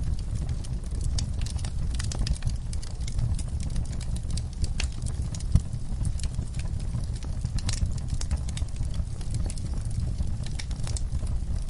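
Wood fire burning in a fireplace: a steady low rumble of flames with irregular crackles and snaps of burning wood, and one louder pop about five and a half seconds in.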